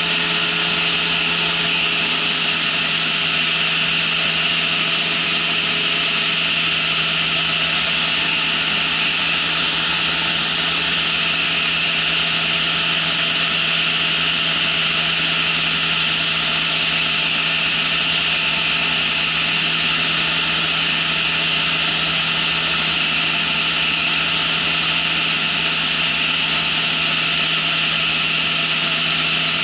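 Ultralight trike's engine and propeller droning at a steady cruise, with air rushing hard over the microphone.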